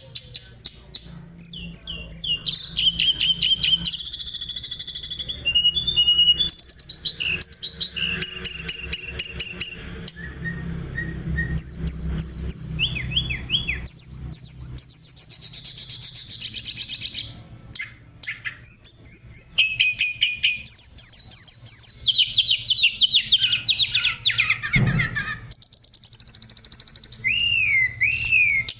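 Oriental magpie-robin (kacer) singing a long, varied song of rapid trills, whistled notes and sweeping phrases, with a couple of short pauses.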